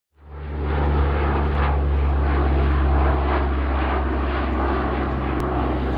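Lockheed C-130 Hercules flying low past, its four turboprop engines and propellers running with a steady deep hum and a rougher noise above that wavers. The sound fades in over the first second.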